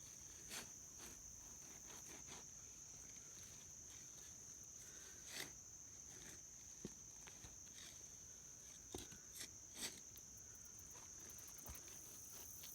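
Faint, steady high-pitched chirring of crickets and other insects, with scattered soft clicks and knocks from hands and tools working loose garden soil while digging up sweet potatoes.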